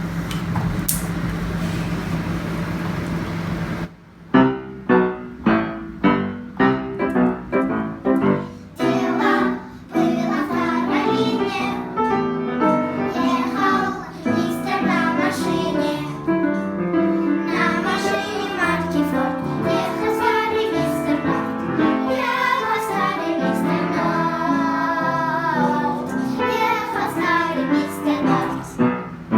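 A song performance: a few seconds of even noise, then a rhythmic keyboard introduction with sharp, regular notes. From about ten seconds in, a group of children's voices sings over the accompaniment.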